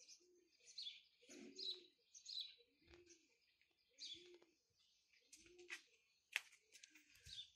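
Faint bird calls: small birds chirping high and quick, and a dove cooing a low note about every second and a half. There is one sharp click about six seconds in.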